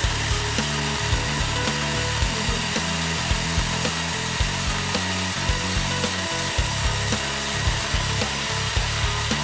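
Oregano rubbing and sieving machine running steadily, with a rasping, sawing-like noise as the dried herb is stripped and sifted, over background music with a changing bass line.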